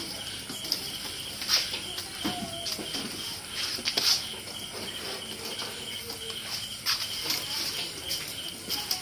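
Crickets chirring steadily, with a few sharp clicks and knocks now and then.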